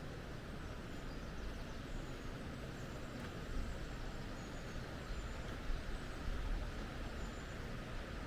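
Steady rushing of canyon river water, with a few faint high-pitched chirps over it.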